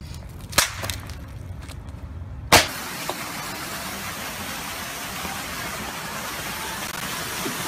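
Low rumble of a car interior with a sharp click, then one loud sharp crack about two and a half seconds in, followed by a steady rushing noise like wind on the microphone.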